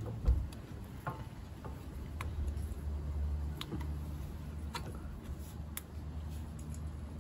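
Small metallic clicks and ticks, about one a second, as a greased Suzuki Jimny front brake caliper slide pin is pushed by hand into its rubber grommet and caliper. A single soft thump comes just after the start, and a low steady rumble runs underneath.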